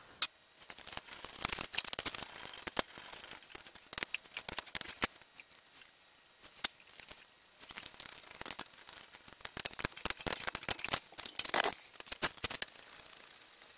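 Wheel nuts being threaded onto the wheel studs of an alloy wheel by hand: irregular small metallic clicks, taps and scrapes, with a denser flurry near the end.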